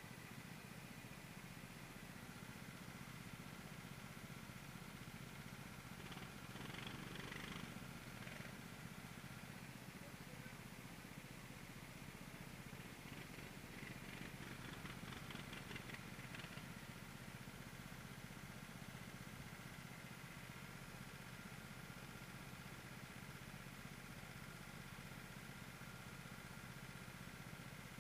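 Faint running of go-kart engines as a pack of karts moves together on track, heard from one of the karts, with a steady low hum. It grows louder and rougher twice, about six to eight seconds in and again around fourteen to sixteen seconds.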